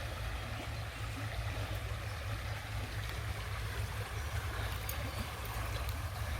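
Fast-flowing creek, running high after a storm, rushing steadily, over a steady low rumble.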